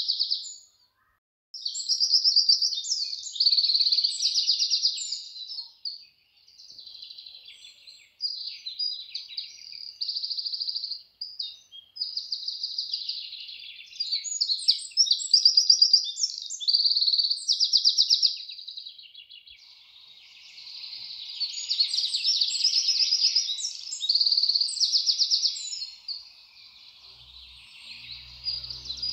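High-pitched animal chirping and rapid trills, in repeated runs of a second or two.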